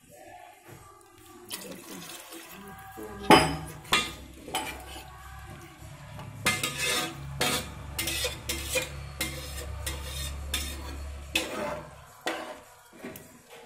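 A spatula stirring rice and liquid in an aluminium pressure cooker, knocking and scraping against the pot at irregular intervals, the sharpest knock about three seconds in. A low steady rumble runs underneath through most of it.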